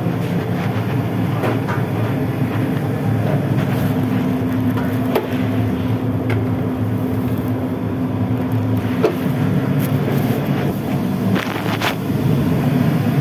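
Steady low rumble of commercial kitchen equipment, with a constant hum and a few light knocks and clatters scattered through it.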